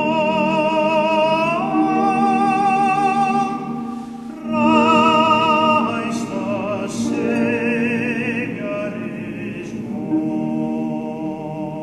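Singing: a high voice holds long notes with a wide vibrato over steadier lower tones, with a short break about four seconds in.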